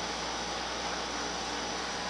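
Steady hiss of compressed air from a paint spray gun laying down polyester primer, mixed with the steady running of the shop's exhaust fans.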